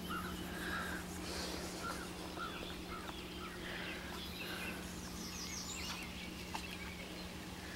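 A bird singing in short repeated chirps over a steady low hum.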